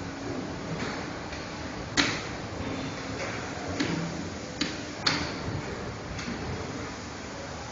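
Steady machine hum from a dry offset pail printing line, with a few irregular sharp plastic clacks over it. The loudest clack comes about two seconds in and others follow near four and five seconds.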